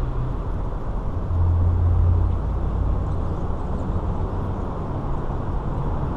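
Steady low rumble of a car driving, with a slightly louder low hum swelling about a second in and fading a second later.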